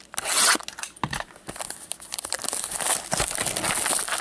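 Box cutter slicing the plastic shrink wrap of a sealed trading-card box, with a short hiss near the start, then the cellophane crinkling and crackling steadily as it is torn and pulled off.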